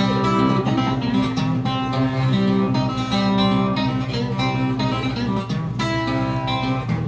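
Solo acoustic guitar playing the instrumental introduction to a song, a steady rhythm of picked notes ringing over a repeating bass line.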